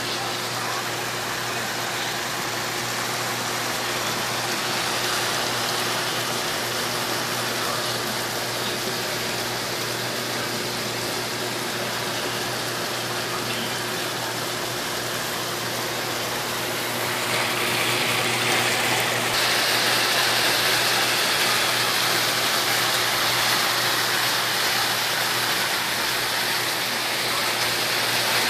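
Chicken and broccoli sizzling and simmering in a frying pan: a steady hiss over a low, even hum. The hiss gets louder about two-thirds of the way through.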